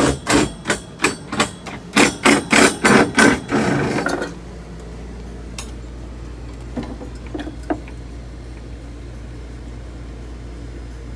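A hammer striking about a dozen times in quick succession, the blows coming faster until they stop about four seconds in. A steady low hum and a few faint knocks follow.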